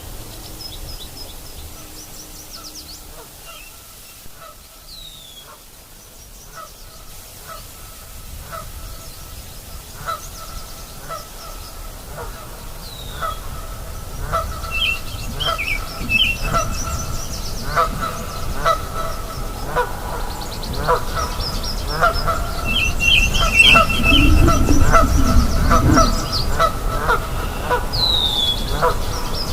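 A chorus of nyamang frogs at a river, many short honking calls overlapping and answering each other, growing denser and louder toward the end. Small birds chirp and whistle higher above them, and a low rumble comes in about three-quarters of the way through.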